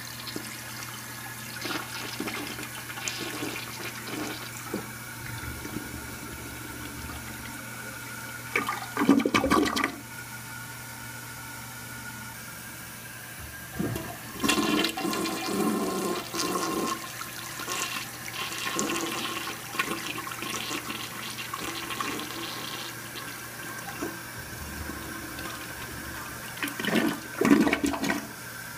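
American Standard Cadet elongated toilet, believed to be a 1979 model, flushing twice: water rushes and swirls through the bowl. Each flush ends in a loud siphoning gurgle as the bowl empties, one about nine seconds in and another near the end. The second flush starts about fourteen seconds in.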